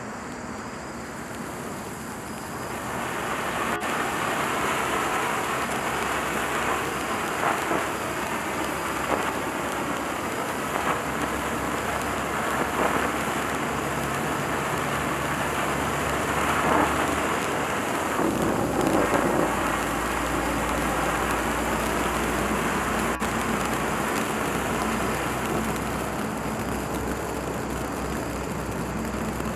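Black Cat Tiger Fountain ground-fountain firework spraying sparks with a steady hiss that builds up about two to three seconds in, with a few brief louder crackles.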